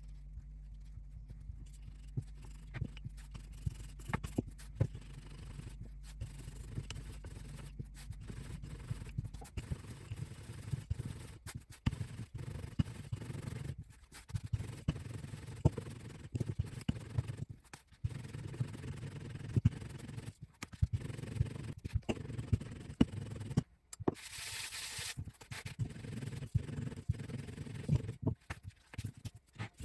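Wooden rolling pin rolling dough out flat on a silicone baking mat, with rubbing, scraping and many small clicks and knocks from the pin and hands. A low steady hum runs underneath, and there is a brief hiss about three-quarters of the way through.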